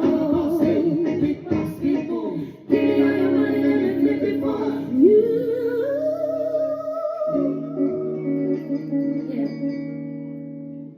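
A band with a female singer ending a song: wordless sung runs and a rising vocal glide over held chords, all fading away near the end.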